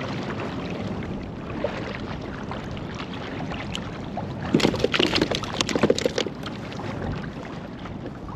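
Wind on the microphone and water lapping around a plastic fishing kayak. About halfway through comes a loud burst of rapid knocking and rattling, as a freshly caught white perch is pressed down and handled against the kayak's deck.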